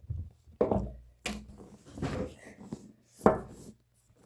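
Cardboard packaging of a trading-card box being handled and struggled with: four or five separate knocks and scrapes, the sharpest about three seconds in.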